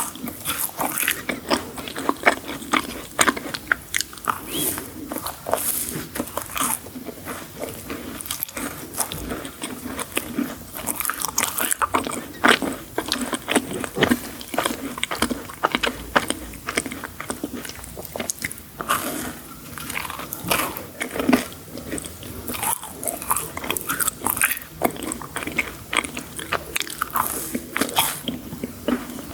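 A person biting and chewing crunchy sweets close to the microphone, with many sharp, irregular crunches.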